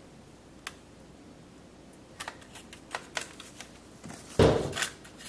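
Metal spatula clicking and scraping against a wire baking rack over a foil-lined tray: a few light taps, then a quicker run of clicks, and a louder thud about four seconds in as a glazed chicken patty is turned over onto the rack.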